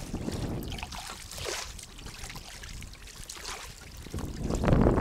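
Kayak paddle strokes: the blades swish through the water and water trickles and drips off them, coming in swells every second or two, with the loudest stroke near the end.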